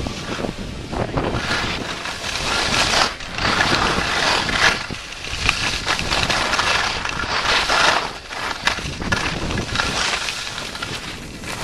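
Skis scraping and hissing over packed snow during a downhill run, swelling louder and fading several times.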